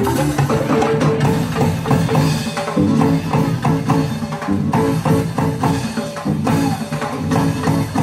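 Live Sundanese (West Javanese) traditional ensemble music: kendang drums beat a driving rhythm under a repeating tune on pitched bamboo percussion.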